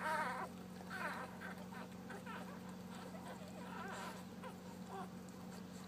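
Newborn puppies squeaking and whining in short, wavering high calls, the loudest right at the start, over a steady low hum.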